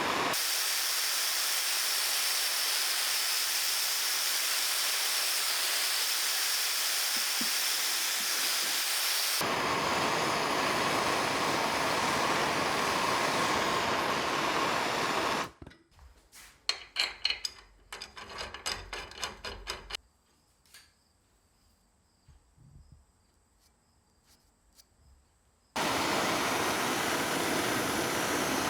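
Loud, steady, hissing noise of a power tool working metal, in edited stretches that start and stop abruptly. About halfway through it stops, and a few seconds of clanks and knocks from handling metal parts follow. After a spell of near quiet, the steady tool noise returns near the end.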